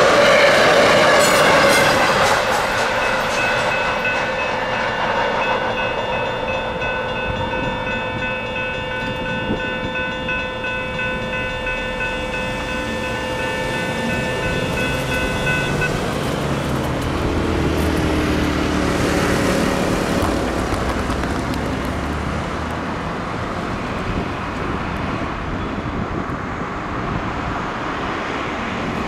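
The last cars of a passenger train rush past over the crossing for the first couple of seconds, while the grade crossing's electronic bells (a Safetran Type 1 and a General Signals Type 3) ring steadily. The bells cut off a little over halfway through, and a car then drives past over the crossing.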